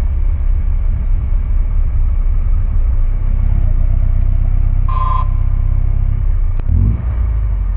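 Honda CBR650R inline-four engine running at low road speed, a steady low rumble, with a short high beep about five seconds in.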